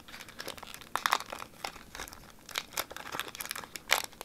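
Foil Pokémon TCG booster pack wrapper crinkling as it is handled and pulled at to open it, in irregular crackles, loudest about a second in and again near the end.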